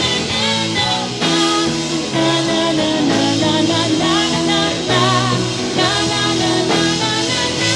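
Rock band music with guitar.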